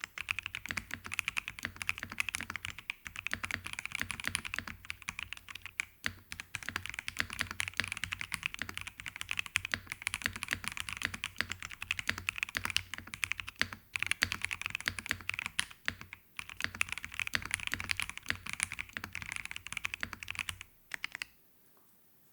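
Typing on a Keychron V1 Max gasket-mount mechanical keyboard with Gateron Jupiter Red linear switches: a fast, continuous run of keystrokes with a few short pauses, which stops about a second and a half before the end.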